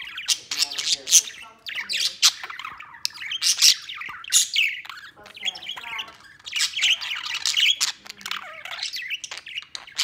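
Budgerigar warbling and chattering almost without pause, a fast run of shifting chirps and harsh squawky notes.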